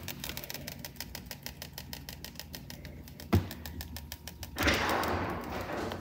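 Refrigerator freezer compartment making a rapid, even clicking, about ten clicks a second, with one louder knock partway through. Near the end the clicking gives way to a rushing hiss.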